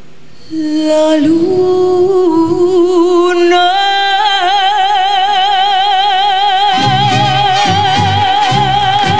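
Female ranchera singer holding the song's long closing high note with wide vibrato, backed by a mariachi band: trumpets sustain a chord under her, and about seven seconds in the guitars strike rhythmic closing chords.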